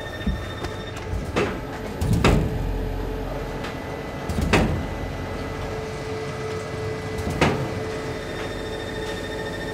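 A few sharp knocks and clatters of work, about five, the loudest a little over two seconds in with a short low rumble after it, over a steady machine hum.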